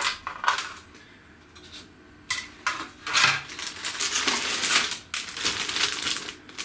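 Hard plastic model-kit parts being handled: a few sharp clacks at the start, then, after about two seconds, a longer stretch of dense rustling and scraping.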